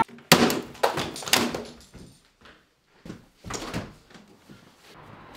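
A few sharp knocks and thumps in the first second and a half, then a balcony door being opened about three and a half seconds in, after which a steady faint hiss of outdoor street noise comes in.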